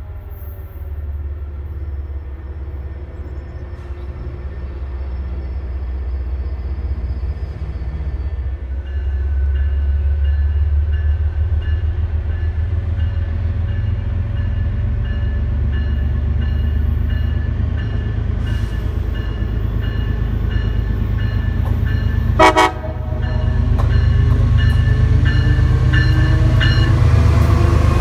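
MBTA commuter rail diesel locomotive approaching and passing: its engine's low rumble grows steadily louder, with a bell ringing from about a third of the way in until near the end. A short horn blast sounds about three-quarters of the way in, then the locomotive and coaches pass close by with louder wheel and rail noise.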